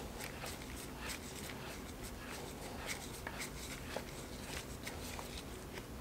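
Faint handling noise as gloved hands turn a retaining nut by hand onto a ring roller's mandrel: soft rubbing and rustling with a few small metal ticks.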